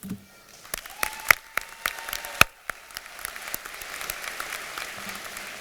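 Audience applause: scattered claps at first, building into steady clapping from a large crowd.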